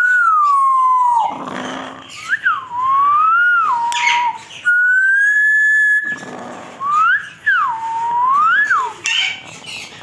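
African grey parrot whistling a tune: a string of clear whistle notes that glide up and down, with one longer, steady note in the middle.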